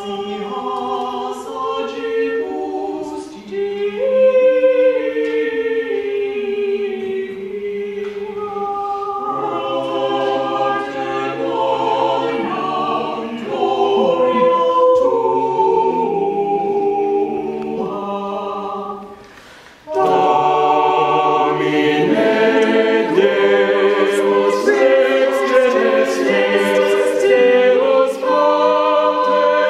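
Church choir singing in Latin. The singing breaks off briefly about twenty seconds in, then resumes fuller and louder.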